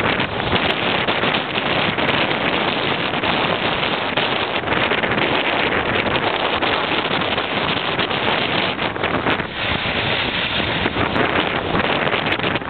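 Steady wind buffeting the microphone over water rushing and splashing along the hull of a sailing yacht under way.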